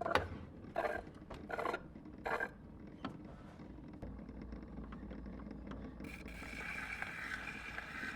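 Gramophone being handled: four short ratcheting, scraping strokes about 0.8 s apart, typical of winding the crank, then a steady low rumble and hiss of the running turntable and needle. About six seconds in, the record's sound begins to rise.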